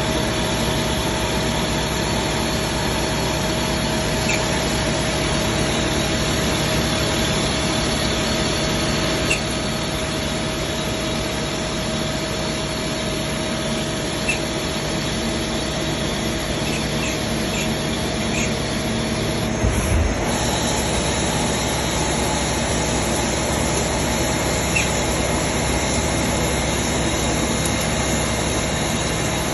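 Hyundai CNC machine tool running, a steady mechanical noise with a constant whine and occasional small clicks. About twenty seconds in, a low thump comes and the noise changes slightly.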